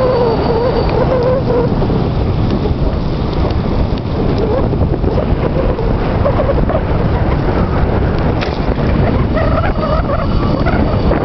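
Steady wind rumble on the microphone and tyre noise from a moving electric bicycle, with a wavering whine in the first couple of seconds and again near the end.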